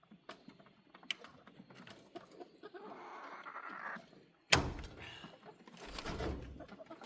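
Scattered small clicks and rustling, then one sharp, loud thunk about four and a half seconds in, followed by more rustling and knocking.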